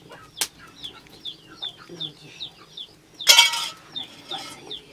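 Chickens clucking and cheeping, a string of short high falling peeps about three a second. A sharp metal clink comes near the start, and a louder harsh scrape a little over three seconds in.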